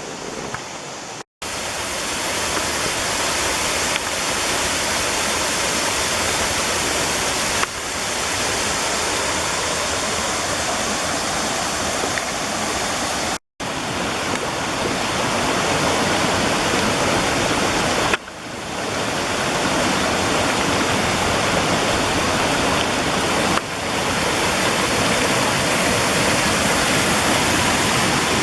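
Water rushing steadily down a rocky creek with small waterfalls, a loud even rushing noise. It cuts out for a moment twice, about a second in and about thirteen seconds in.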